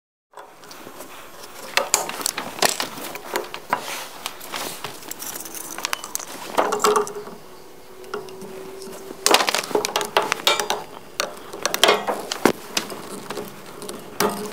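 Irregular clicks, knocks and rattles of blue PEX pipe and brass push-fit fittings being handled and pushed together, with a drawn-out squeak near the middle.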